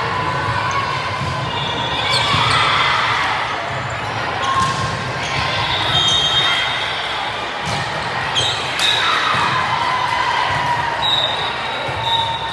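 Gym sounds during an indoor volleyball match: several sharp ball strikes, high sneaker squeaks on the court floor, and spectators' voices throughout, echoing in the hall.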